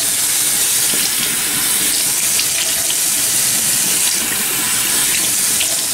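Bathroom faucet running steadily into a sink, a loud even hiss with light irregular splashes as water hits the basin.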